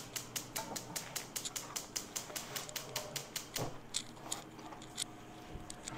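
Gas stove burner's electric igniter clicking rapidly, about five clicks a second, as the burner is lit. The clicking stops about three and a half seconds in, leaving a few scattered clicks.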